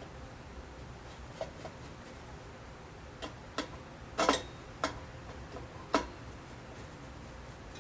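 Scattered sharp metallic clicks and taps, a screwdriver working the small retaining screws of a drum-style cowl side light. There are about seven irregular clicks, with the loudest little cluster a bit past the middle.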